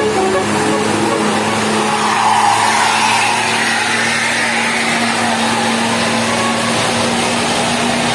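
Tour bus going by with engine and road noise, swelling in the middle, over a steady low hum. The last notes of a telolet horn tune end about half a second in.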